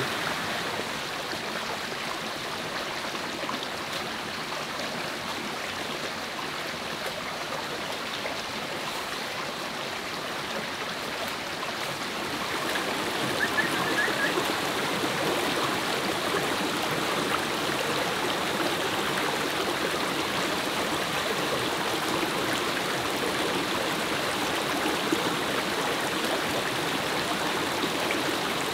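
Rocky forest stream running over stones and small cascades, a steady rush of water that gets louder about twelve seconds in.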